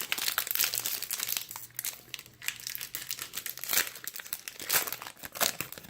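A trading card pack's wrapper crinkling and tearing as it is opened by hand, a dense, irregular run of crackles.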